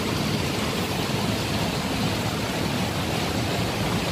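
Steady, even background noise like a constant hiss, with no distinct events.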